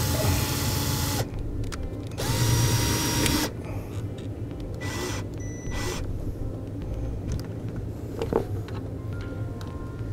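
Cordless drill/driver driving screws to fasten a rocker switch to the underside of a truck dash: two runs of motor whine that rise in pitch and then hold, each about a second long, then two short bursts about five and six seconds in.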